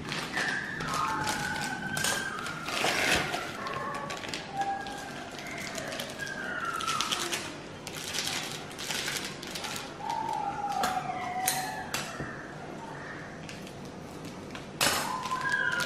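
Plastic jelly-powder sachets rustling and tapping as they are torn and emptied into a glass measuring jug, with short bird chirps in the background.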